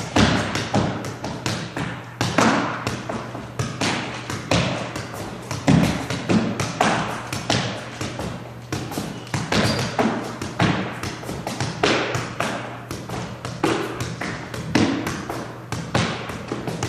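Soccer ball being juggled with the feet: repeated thuds of foot striking ball, about two a second, mixed with footfalls on a wooden floor, each echoing off the hard walls of a squash court.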